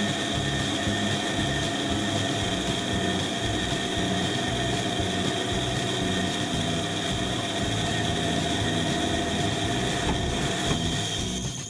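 Pégas fine-cut band saw running with a steady high whine as its narrow blade cuts through a small block of wood.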